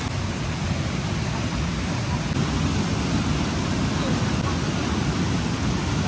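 Rushing river water, a steady even noise with most of its weight low down.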